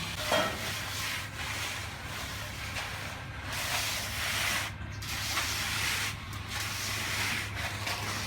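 Wet concrete being poured and spread for a slab: irregular rushing, scraping noise that swells and fades several times over a steady low engine drone.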